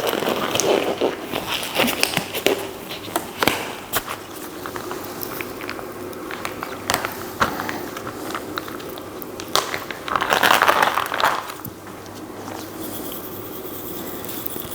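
Kitchen handling sounds from cookware and utensils: a string of sharp clicks and knocks, with two louder rushing bursts, one at the start and one about ten seconds in.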